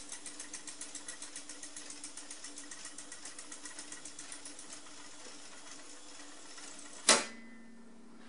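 Uher 724 Stereo reel-to-reel tape recorder rewinding: a steady motor hum with a fast, even ticking from the spinning reels that fades out about five seconds in. A single loud click of a deck key comes about seven seconds in, after which the hum carries on a little lower.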